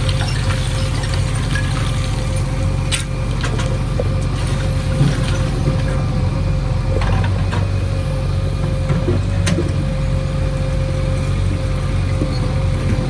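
Diesel engine of heavy earthmoving machinery running steadily, with a constant whine over it and a couple of sharp knocks.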